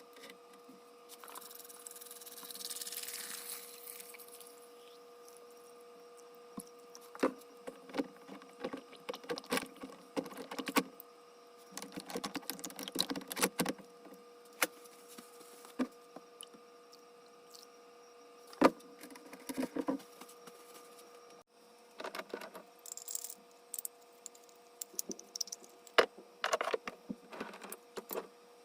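Scattered clicks, knocks and clinks of small metal parts and hand tools being handled during disassembly of a small metal lathe, with a short hiss about two seconds in, over a faint steady electrical hum.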